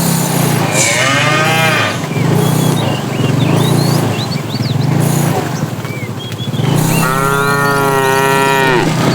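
Cows mooing: two long moos, one about a second in and a longer, steadier one starting around seven seconds in. A low rumble pulses underneath about once a second, with faint bird chirps between the calls.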